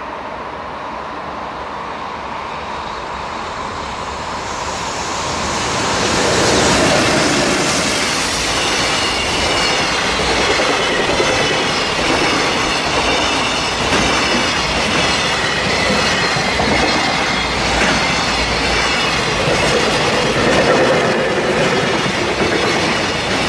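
Container freight train approaching, growing louder over the first six seconds, then its wagons rumbling and clattering past with a high, wavering squeal from the wheels on the rails.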